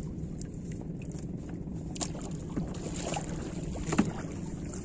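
Small fishing boat's motor running steadily, with a few sharp knocks on the boat, the loudest about four seconds in.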